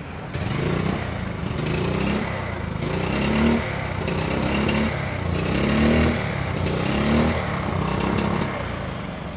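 Hero Glamour FI's single-cylinder fuel-injected engine running with its bank angle sensor bypassed, the throttle blipped about seven times. Each blip rises in pitch and then drops back.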